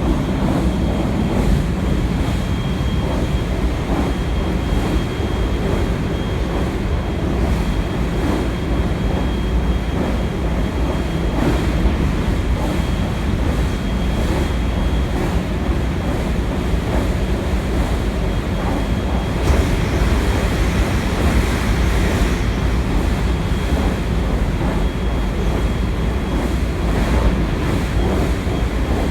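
Cabin running noise of a JR West 223 series 0 electric train at speed: a steady rumble of the wheels on the rails and the car body, with a thin high steady tone through most of it and a brief rise in hiss about twenty seconds in.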